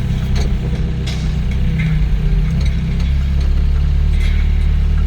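Doosan DX55 mini excavator's diesel engine running steadily, its low note building a little about two seconds in, with a few light knocks.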